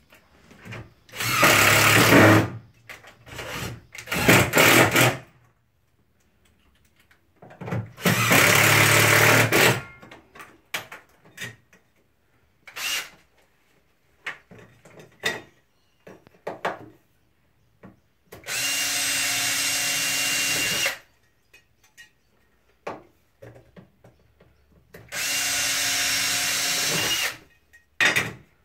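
Cordless drill running in five bursts of one to three seconds while fixing a flyscreen to an awning window frame. The last two runs are steady and even in pitch. Small clicks and knocks from handling the tool and the screen come between the runs.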